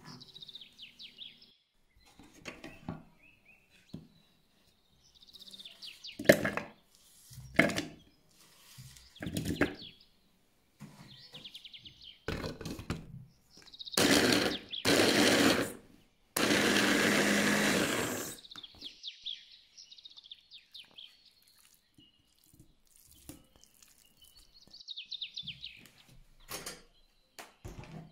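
Kitchen food-preparation noises with birds chirping in the background: scattered knocks, then three loud bursts of a rushing, whirring noise about halfway through, the last and longest lasting about two seconds.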